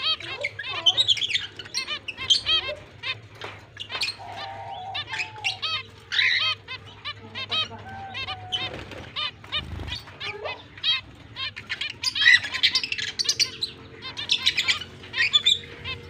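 Zebra finches calling: a dense, continuous run of short, quick chirps, busiest and loudest about six seconds in and again around twelve seconds.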